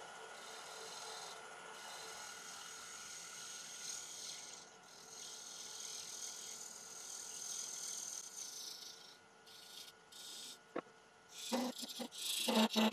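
Bowl gouge cutting a spinning damson bowl blank on a wood lathe, a steady scraping hiss of shavings coming off the base. It goes quieter and patchy later on, then comes back in several short loud cuts near the end.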